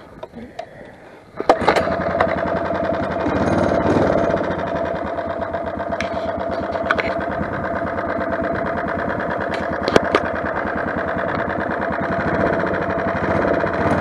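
Small four-stroke engine of a motorized bicycle catches about a second and a half in, then runs steadily with a fast, even firing beat. A few sharp clicks sound over it.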